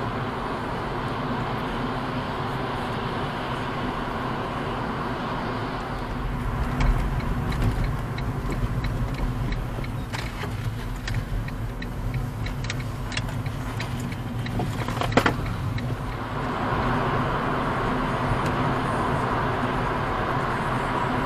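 Steady road and engine noise inside a moving car, as heard through a dash cam: tyre roar and engine rumble. The sound changes character twice. Through the middle stretch a scattered run of sharp clicks sits over the quieter noise, the loudest a little before the second change.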